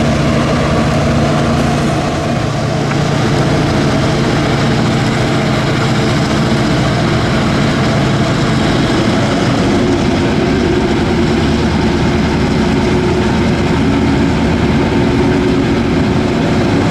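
Diesel locomotive running hard as it struggles up a steep grade with a heavy train on its only working engine, with a steady hum. A stronger, higher-pitched hum comes in about ten seconds in, and near the end its wheels begin to slip, throwing sparks.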